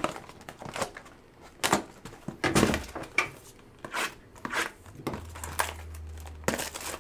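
Bowman Chrome hobby box and its wrapped packs being handled as the box is opened: irregular crinkling and rustling of pack wrappers with scrapes and taps of cardboard.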